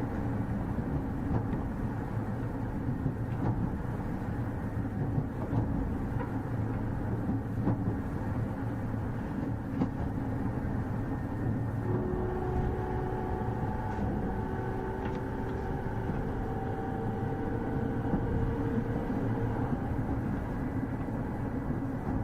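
Onboard running sound of a JR 209 series 2000-subseries electric train: a steady rumble of wheels on rail with occasional faint clicks. About halfway through, the faint whine of its Mitsubishi IGBT VVVF inverter and traction motors comes in, stepping slightly up in pitch.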